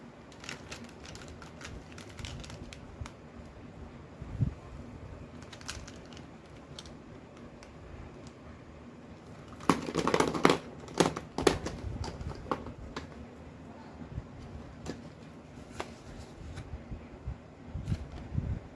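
Packaging being handled and crinkled, with scattered small clicks and taps and a louder burst of crinkling about ten seconds in.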